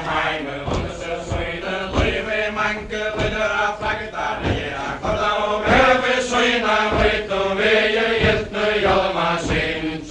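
A group of voices chanting a Faroese ballad in unison for the Faroese chain dance, unaccompanied, over a regular beat of about one and a half strokes a second from the dancers' steps.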